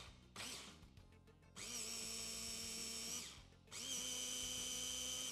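Electric kitchen chopper with a glass bowl grinding roasted hazelnuts down to a flour-like meal, run in pulses: a brief burst near the start, then two runs of about a second and a half. Each run whines up to speed and holds a steady pitch.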